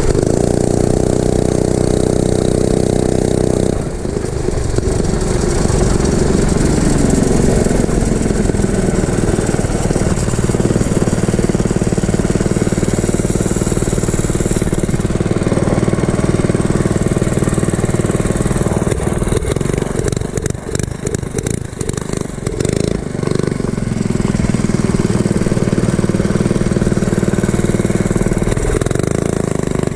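Mini bike's small engine, with its governor removed, running hard on a ride. Its pitch climbs about five seconds in, dips and turns choppy for a couple of seconds about two-thirds through, then holds high again.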